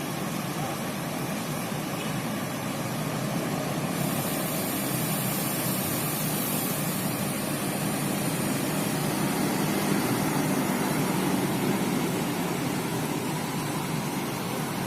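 Steady engine noise of buses idling, with a faint high hiss joining about four seconds in.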